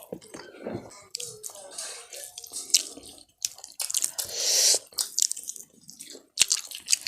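Close-up wet eating sounds: scattered smacks and clicks of chewing chicken, with a brief hiss about four seconds in.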